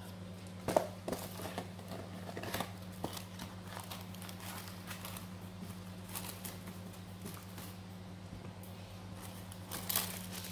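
Paper crinkling and rustling as a cardboard takeaway chicken box is opened and the paper wrapper inside is lifted, with a cluster of sharp crackles about a second in and another near the end. A steady low hum runs underneath.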